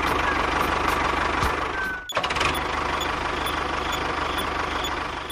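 Engine idling steadily with a rapid low chugging. The sound cuts out briefly about two seconds in, then carries on.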